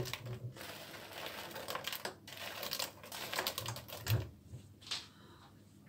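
A spatula scraping and tapping on a plastic cutting board as cubed biscuits are pushed off into a pot of cream: a run of light, irregular clicks and taps, thinning out after about four seconds.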